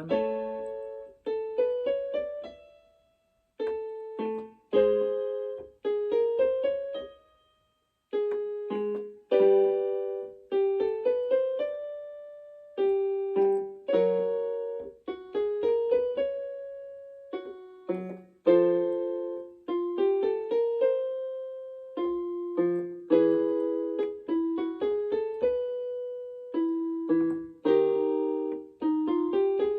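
Piano playing a vocal warm-up exercise pattern: a short chord, then single notes stepping up to the fifth, repeated several times, each repetition starting a step lower as the exercise comes back down.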